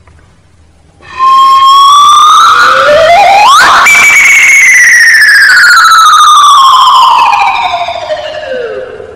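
A loud whistle-like tone starts about a second in and climbs gently. A second tone sweeps sharply upward, then the pitch jumps high and glides slowly down for about five seconds, fading near the end.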